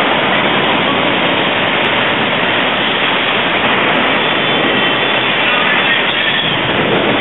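Torrential wind-driven rain in a violent storm: a steady, loud rush of noise that does not let up.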